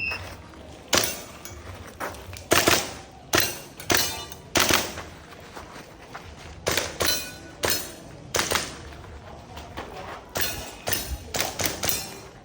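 Airsoft pistol firing a practical-shooting course of fire: sharp shots in quick pairs and fast strings, with short pauses between groups, starting about a second after a shot timer's start beep.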